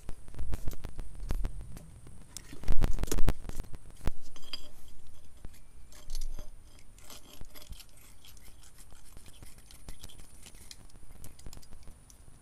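Irregular scraping and clicking as a knife cuts and scrapes burnt rubber off a metal trailing-arm bracket, louder in two spells over the first three seconds or so, then lighter scattered scratches.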